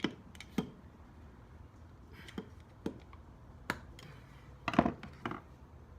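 Scattered sharp metallic clicks and clinks of a screwdriver working a C-clip into its groove on a brake caliper, about seven in all, the loudest pair near the end.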